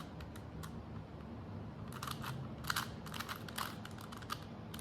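Rubik's cube being turned by hand: quick plastic clicks and scrapes as its layers snap through a sequence of moves, coming in clusters that are thickest about halfway through.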